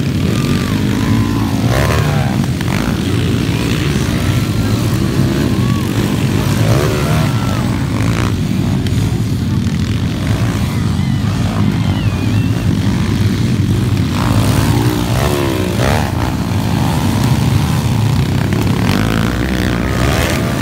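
Several small underbone motorcycle engines racing on a dirt motocross track, a steady engine drone with individual bikes revving up and down as they pass, accelerate and brake into the turns.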